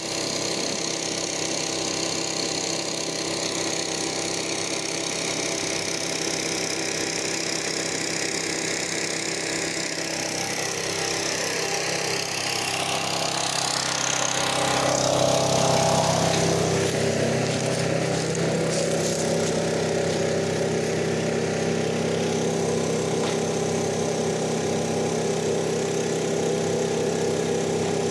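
A small gasoline engine running steadily, with a shift in pitch and a slight rise in level about halfway through.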